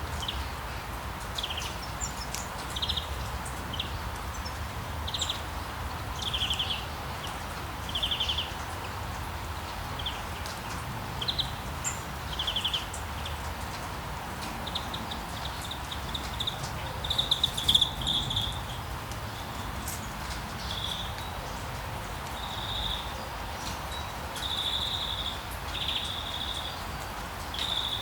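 Outdoor nature ambience: short, high, pulsing chirps repeat every second or two over a steady background hiss, and come thicker and louder for a few seconds near the middle.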